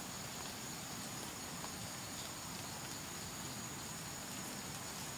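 Insects, crickets or similar, trilling steadily outdoors as one continuous high-pitched hum over faint background noise.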